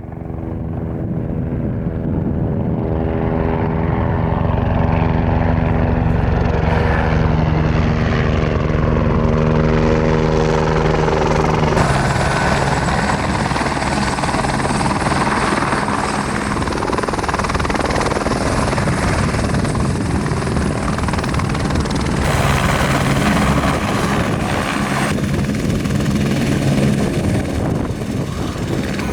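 Eurocopter EC145 twin-turbine helicopter running: a steady stack of engine and rotor tones over a dense rush. The sound changes abruptly about 12 and 22 seconds in.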